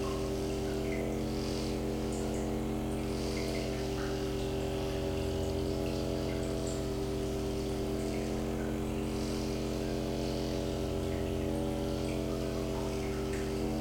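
A steady drone of several held tones over a low hum, unchanging throughout, with faint soft rustles above it.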